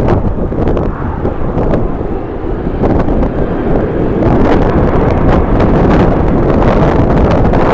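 Strong gusty wind buffeting the microphone with a loud low rumble, dipping slightly then picking up again about three seconds in.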